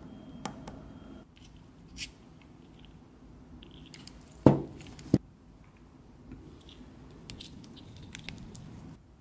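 Gel polish bottles being handled on a desk, with light clicks and taps throughout. About halfway through come two sharp knocks, well under a second apart, as bottles knock together or are set down.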